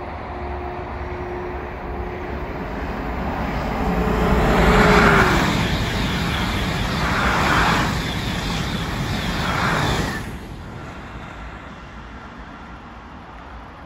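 TGV high-speed train passing at speed: a swelling rush of wheel and air noise in three surges, with a whine that drops in pitch as it goes by. About ten seconds in it cuts off abruptly to a quieter steady hum of motorway traffic.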